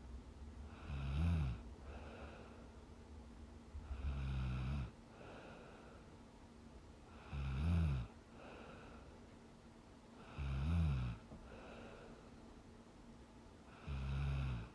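A young woman snoring in her sleep: five low, rattling snores, one about every three seconds, each followed by a softer breath.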